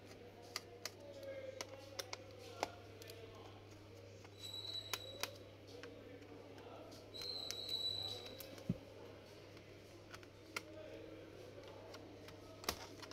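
Hand screwdriver turning out the small back-panel screws of a Lenovo G570 laptop: scattered light clicks and ticks of metal on the screws and plastic case, with two short high squeaks, one about four and a half seconds in and one about seven and a half seconds in. A steady low hum runs underneath.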